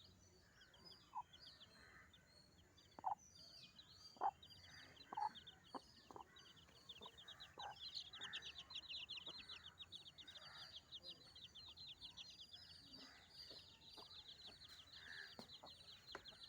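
Hen clucking, short single clucks every second or so, over a fast high trill that runs throughout and grows louder about eight seconds in.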